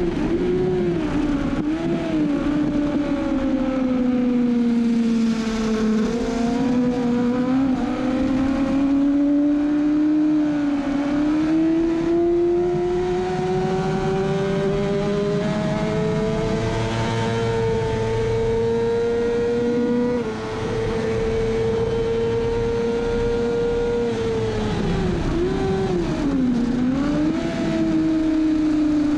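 Kawasaki ZX-6R's inline-four engine running hard at race speed, held high in the revs, its pitch climbing slowly through a long pull. The pitch and level drop briefly about twenty seconds in. Near the end the revs sink and climb again as it slows through a corner. Steady wind rush sits under the engine.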